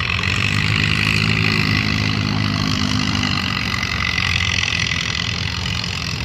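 Farm tractor engine running hard while pulling a weight sled; its steady engine note drops away about three and a half seconds in.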